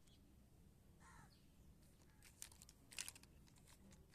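Near silence, broken by a cluster of small clicks and crinkles around the middle, loudest near three seconds, as plastic toy vehicles are handled on a cloth. A single faint bird call sounds about a second in.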